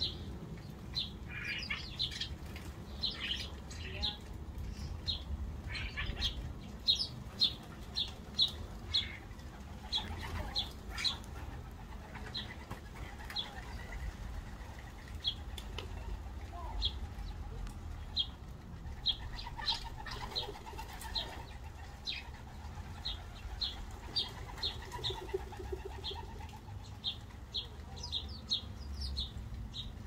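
A flock of sparrows at a bird feeder chirping in short, repeated notes, with wings fluttering as birds come and go. A low steady rumble underneath.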